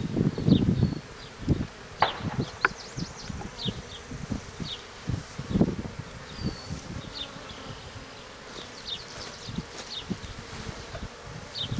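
Honeybees buzzing around an opened hive, loudest in the first second, with a few light knocks and clicks of hive parts being handled.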